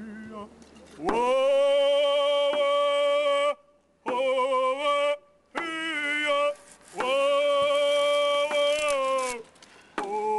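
A solo voice singing a slow song in long held notes, about five phrases with short pauses between them, the pitch wavering at the end of each phrase.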